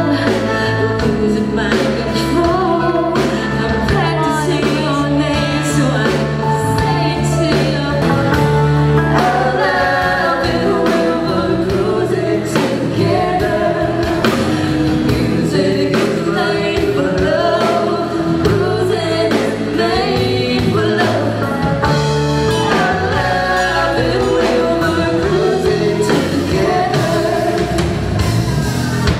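Live band playing a song: a woman sings lead into a microphone over electric guitar, bass guitar, drum kit and keyboard, with a steady beat.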